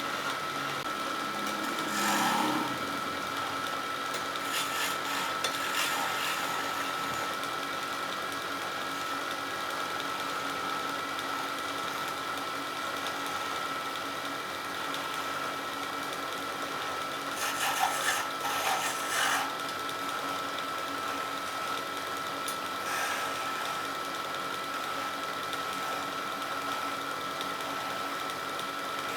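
Wood lathe running steadily with a constant motor whine, while a turning tool cuts the spinning wood in several short scraping stretches: about two seconds in, around five to six seconds, around eighteen to nineteen seconds and briefly near twenty-three seconds.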